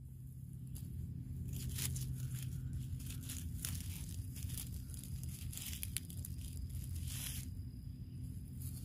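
Irregular rustling and crackling of dry forest litter and undergrowth, over a steady low rumble.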